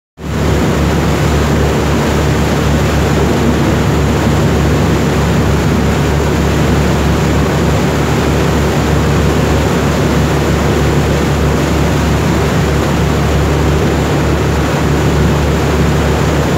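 Sightseeing boat's engine droning steadily as the boat cruises, under a constant rush of water and wind.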